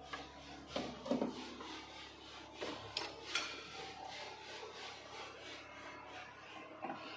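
Faint rubbing and scraping with a few light knocks: hands handling insulated cables inside a metal distribution board. The louder knocks come about a second in and again around three and a half seconds in.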